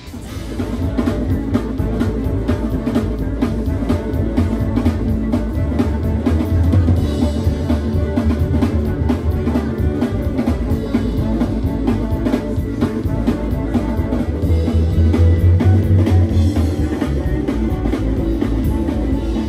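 Live rock band playing loud: a drum kit with bass drum keeps a steady beat under electric guitar and upright double bass, coming in at full volume right at the start.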